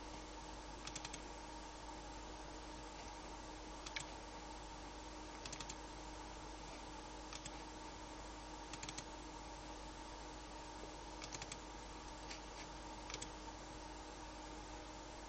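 Computer keys pressed in short, scattered groups of two to four clicks, over a steady electrical hum and hiss.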